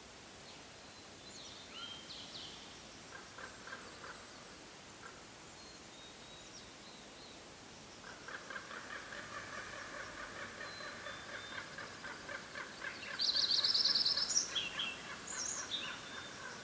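Wild birds calling in a forest: a few scattered high chirps, then from about halfway through a long, rapid chattering call that runs on, joined near the end by a louder, higher quick trill and short notes.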